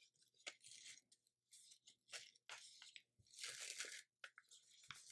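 Faint crackle of DTF transfer film being peeled off a heat-pressed T-shirt after cooling, coming away easily from the print in several short pulls.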